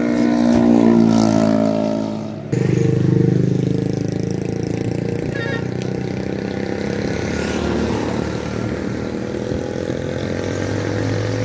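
Motor vehicle engine running with a steady drone. About two and a half seconds in, it cuts abruptly to a lower, steady engine hum.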